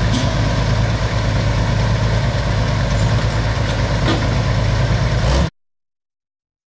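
John Deere 6030 pulling tractor's diesel engine idling steadily at the end of its pull. The sound cuts off suddenly about five and a half seconds in.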